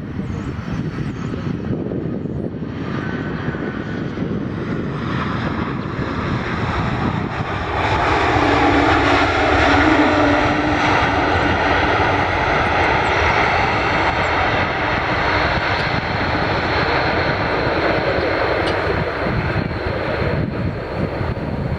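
Jet noise from an Airbus A220-300's Pratt & Whitney PW1500G geared turbofans as the airliner arrives to land. It grows louder and peaks about eight to ten seconds in, then stays loud, easing slightly near the end.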